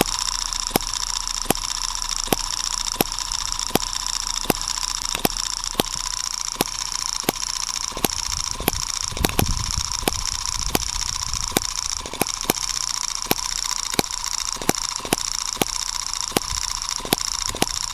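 M17 1.6cc four-stroke hit-and-miss model engine running on its own, with sharp even ticks about two to three times a second over a steady high hiss. The mixture screw is set at its sweet spot, and it runs very smoothly for a hit-and-miss engine.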